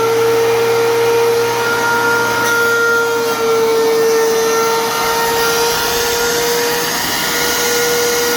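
DEWALT 13-inch thickness planer running at full speed, a loud steady whine of its motor and spinning cutterhead.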